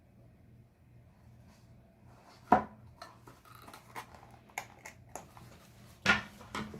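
Handling of a small cardboard product box: a sharp tap about two and a half seconds in, then a run of small clicks and rustles, and another loud tap near the end, over a low steady hum.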